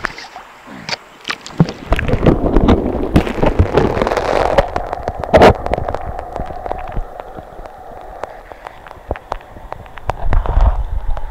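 Water splashing and gurgling around an action camera dipped in and out of a shallow creek, with many sharp pops and knocks against the camera as it moves through the surface. The sound is heard partly from under the water.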